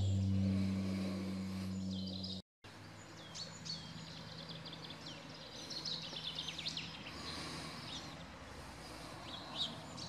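A steady low hum that cuts off about two and a half seconds in, then songbirds chirping and calling outdoors over a faint background hiss, busiest in the middle.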